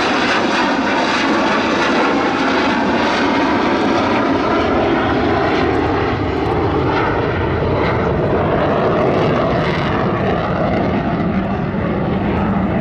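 Avro Vulcan bomber's four Rolls-Royce Bristol Olympus 202 turbojets running in a loud, steady rush as it flies past with its undercarriage down. Faint whining tones drift slowly in pitch through the noise.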